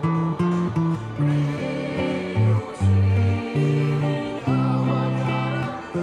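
Les Paul-style electric guitar fingerpicked: a melody of bass notes on the low strings alternating with higher chord notes, changing about every half second.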